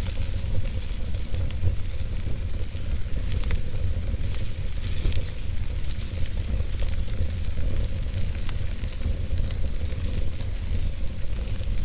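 Wood fire crackling in a fireplace: a steady hiss dotted with scattered sharp pops, over a steady low rumble.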